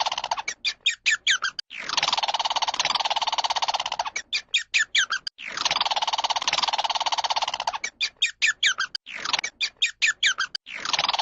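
A bird-like animal call: a long raspy, rattling call of about two seconds, then a quick run of short rising chirps, the pair repeating about every four seconds.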